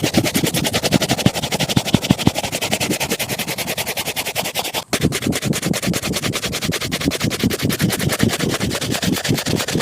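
Fast back-and-forth strokes of a shoe brush working over a shoe, several strokes a second, with a brief break about five seconds in.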